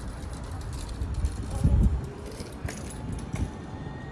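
Low street rumble with a heavy low bump about one and a half seconds in and scattered light clicks. Near the end, a faint thin whine sets in and slowly climbs in pitch: the traction motors of an Alstom Citadis 302 tram as it moves off.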